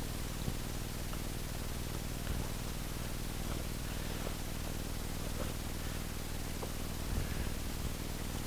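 Low steady hiss with a few soft, scattered clicks and rustles from handling a hiking boot while pulling it on, and a cloth bag being handled near the end.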